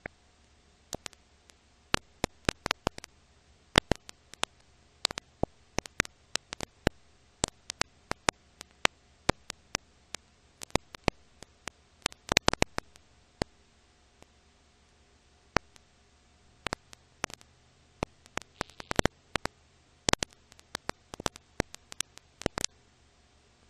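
Irregular clicks and pops, several a second and bunched in places, over a faint steady hiss and hum. This is the crackle of dust and scratches on an old film transfer with no soundtrack of its own.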